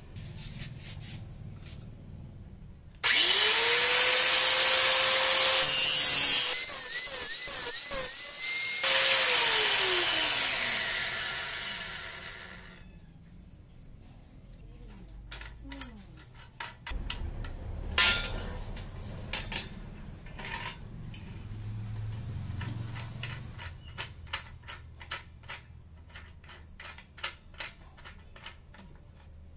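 Bosch GWS 060 angle grinder in a cutting stand starts about three seconds in, its motor whine rising, and grinds through a steel bar loudly for several seconds, with a short dip partway. It then winds down with a falling whine, followed by clicks and knocks of the metal bar being handled in the stand.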